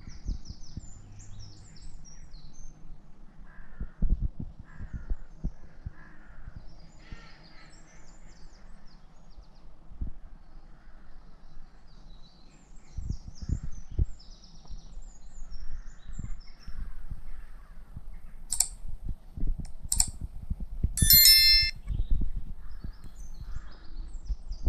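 Morning birdsong: small birds chirping on and off, with a louder harsh call about three-quarters of the way through. Irregular low thuds run underneath.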